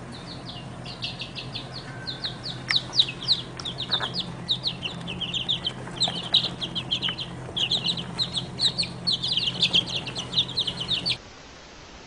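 Young chicks peeping, many short high-pitched chirps in quick, overlapping succession, growing denser before cutting off suddenly near the end.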